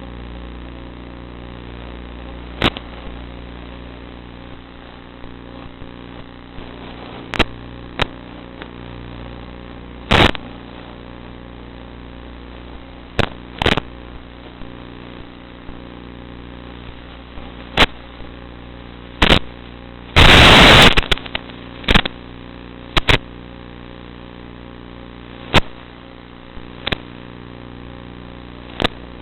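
Electric motor and propeller of a Zagi FPV flying wing running at a steady hum. Irregular sharp pops and crackles break in about a dozen times, with the loudest a rough burst lasting about a second some twenty seconds in.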